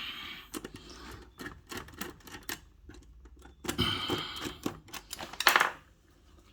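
Irregular small clicks, taps and scraping of metal and plastic as a cable link is pushed into a dishwasher's terminal block and worked into place, with a louder cluster of handling sounds near the end.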